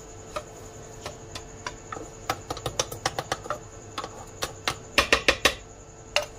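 Spices being tapped out of a small dish into a plastic food-processor bowl: irregular light clicks and taps, with a quick run of louder taps about five seconds in.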